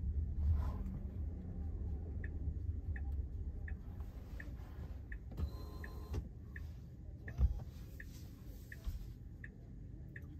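Tesla turn-signal indicator ticking inside the cabin, about one and a half ticks a second, starting about two seconds in, over a low rumble. One low thump about two-thirds of the way through.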